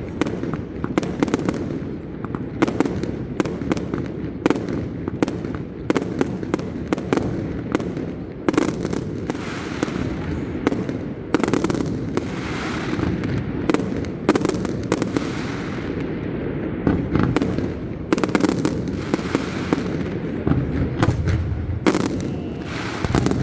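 Fireworks display: many sharp bangs of bursting aerial shells in quick, overlapping succession over a continuous low rumble.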